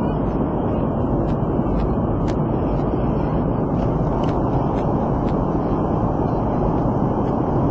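Steady cabin noise of an airliner in flight: the engines and the air rushing past the fuselage as one even, unchanging noise, strongest in the low and middle range.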